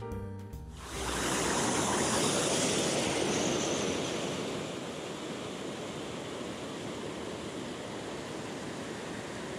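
Jazz music cuts off under a second in, giving way to the steady rush of stream water flowing over rocks, louder for the first few seconds and then settling.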